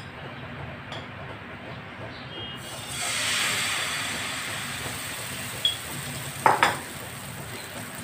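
Thin egg-and-flour paratha batter hitting a hot kadhai, sizzling about three seconds in, a hiss that slowly fades as it is spread. A few sharp knocks follow a couple of seconds later, the loudest sounds here.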